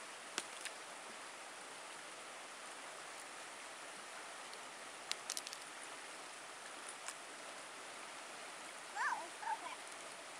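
Steady rush of a flowing creek over rocks, with a few sharp clicks of loose flat stones knocking together. Near the end, a small child's short, high voice sound.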